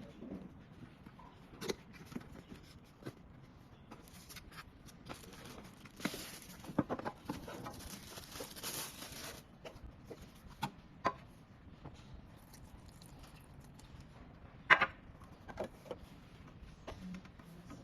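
Scattered light clicks and taps from a plastic aroma diffuser being handled, the loudest knock about fifteen seconds in, with a few seconds of rushing hiss near the middle.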